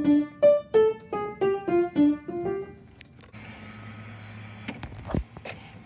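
Emerson piano played one key at a time, a short simple tune of about ten single notes. About three seconds in it gives way to a printer running with a steady hum and whir, with one sharp thump near the end.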